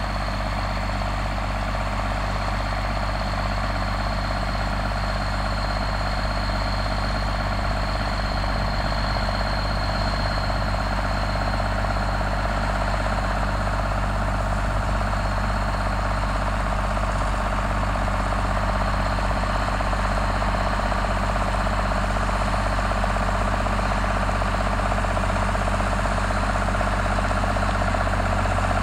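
Case MX110 tractor's six-cylinder diesel engine running steadily under a light load, gradually getting a little louder, while it spreads slurry through an umbilical hose.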